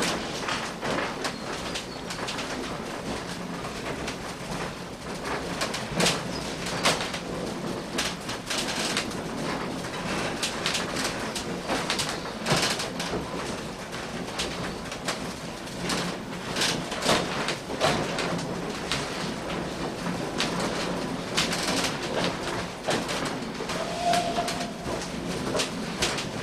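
Heritage railway carriage running along the track: a steady running noise with irregular clanks and rattles.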